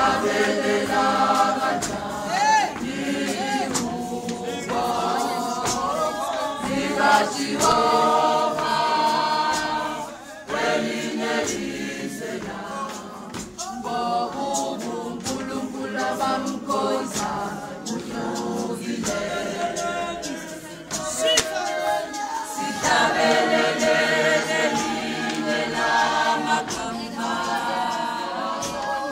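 A congregation choir singing a cappella in a call-and-response style, many voices together, with short sharp beats under the singing.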